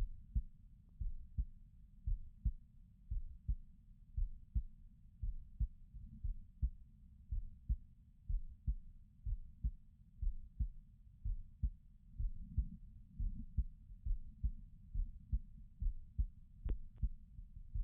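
A person's heartbeat, close-recorded: steady, low, muffled thuds at about one beat a second. Two faint clicks come near the end.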